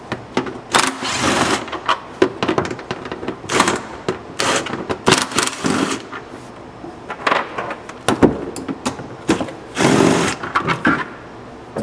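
Power driver running in short bursts, about a second each, as it backs out the bolts holding the outer clutch cover.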